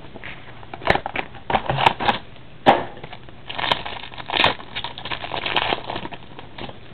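Packaging crinkling and tearing as a small box of trading cards is opened by hand, in a run of irregular crackles and sharp snaps.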